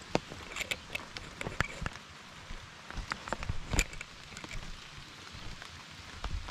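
Rain falling: a soft steady hiss with irregular sharp taps of drops landing close by, several a second.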